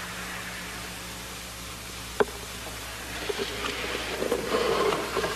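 Steady tape hiss, with one sharp tap about two seconds in as an egg is set down on a wooden table, then a faint patchy rustle as the egg rolls across the tabletop.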